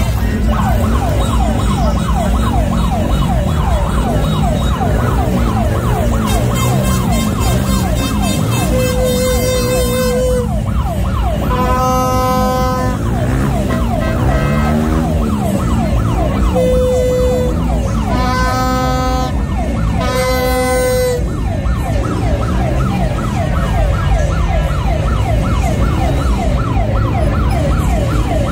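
Several electronic sirens yelping rapidly and overlapping, with several short steady horn blasts in the middle stretch, over a steady low rumble of engines and crowd.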